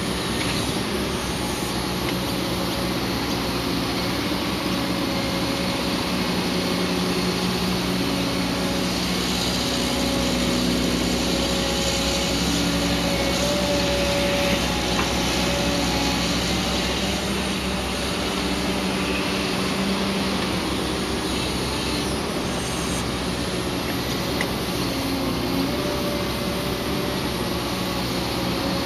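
Diesel engine of a Caterpillar 315D L hydraulic excavator running steadily under load as it digs, swings and dumps into a dump truck, its pitch rising and falling a little with the work.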